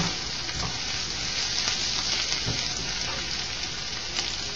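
Chopped bacon and onion sizzling steadily in a skillet over a gas flame, the onions nearly golden, with a few light strokes of a spatula stirring them.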